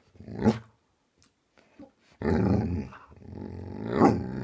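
Dog growl-talking back to its owner: a short grumble about half a second in, then a long, drawn-out vocal grumble that wavers in pitch and swells near the end. It is the dog's playful 'conversation' noise, not an aggressive growl.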